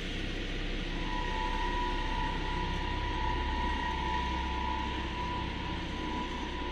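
Zremb lift car travelling through its shaft, heard from the car roof: a steady rumble of the running car and ropes, with a steady whine that comes in about a second in and holds almost to the end.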